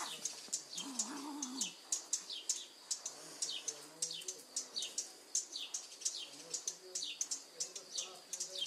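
Small birds chirping continually, with quick high downward chirps several times a second. About a second in there is a short, low, wavering sound that lasts under a second.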